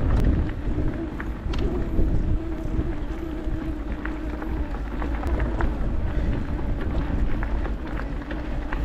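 Wind buffeting the microphone during a ride on an electric mountain bike, a steady low rumble, with a steady hum from the bike's motor and scattered small clicks.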